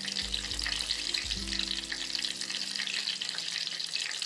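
Battered brinjal (eggplant) slices deep-frying in hot oil in a pan: a steady sizzle.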